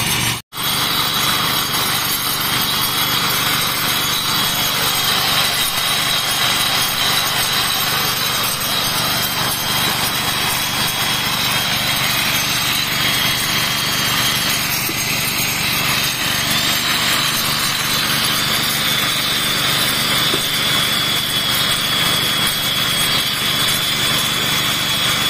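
Rail weld profile grinder: its motor-driven abrasive stone grinding down the welded joint on the rail head. It makes a steady high whine over a grinding hiss as it is pushed back and forth along the rail, breaking off for an instant about half a second in.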